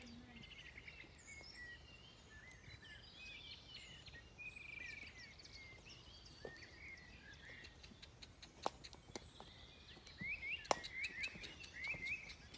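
Wild songbirds chirping and singing in short rising and falling phrases over faint outdoor background. Near the end comes a run of sharp clicks and knocks as the saddled horse walks past close by.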